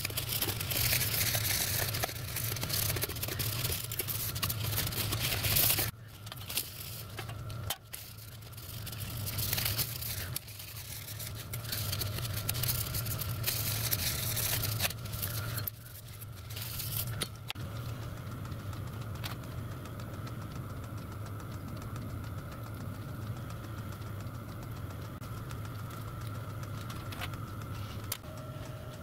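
A cloth rubbing over brass sheet plates to clean and degrease them, a rough wiping hiss that comes in spells and is strongest in the first few seconds, with the plates shifted and handled now and then. A steady low hum runs underneath.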